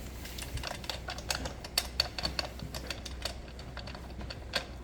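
Light, irregular clicks and taps of a STIHL chainsaw's chain and guide bar being handled and slid into place on the saw.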